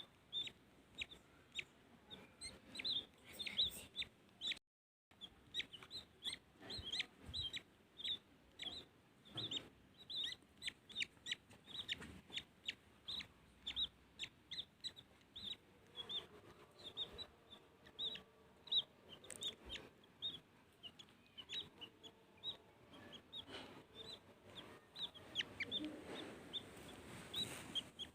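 Baby bird cheeping over and over: short, high, downward-sliding peeps, about two a second, with a brief cut-out a little under five seconds in.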